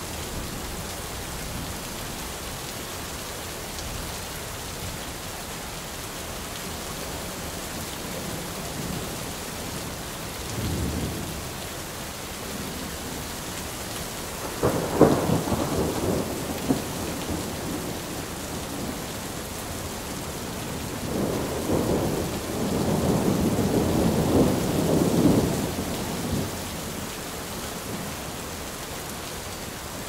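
Steady rain with thunder. There is a faint rumble about ten seconds in, then a sharp clap about halfway that rolls off over a couple of seconds, then a long rolling rumble of about five seconds later on.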